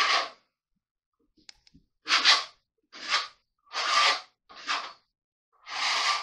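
A trowel scraping flooring adhesive across a plywood subfloor in a series of short strokes, about six of them, each lasting roughly half a second.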